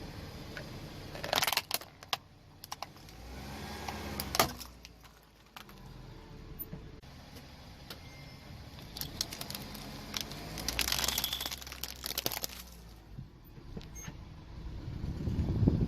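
A car tyre rolling over brittle plastic toys and crushing them: a cluster of cracks about a second in, a sharp snap near four seconds, and a longer run of crackling and splintering about ten seconds in, over the low sound of the car's engine.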